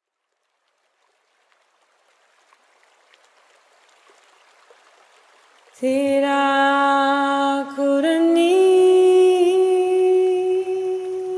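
Background music: a faint fade-in, then about six seconds in a sustained chord of hummed or sung voices comes in suddenly, its held notes stepping up in pitch twice around the eight-second mark.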